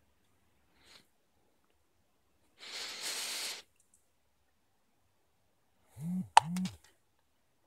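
Tabby cat during rough play with a person's hand: a short hiss about three seconds in, then near the end two short low growls, rising and falling in pitch, with a sharp click between them.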